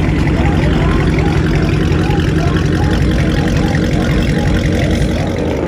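Dodge Charger's HEMI V8 idling, loud and steady.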